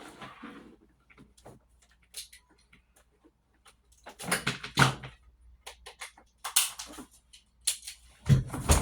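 Handling noises as a hair dryer brush is plugged in: scattered clicks, knocks and rustles, with a louder knock near the end.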